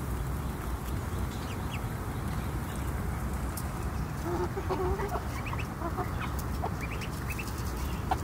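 Hens clucking softly as they feed, a run of clucks gathered around the middle, with a few short high peeps scattered through, over a steady low rumble.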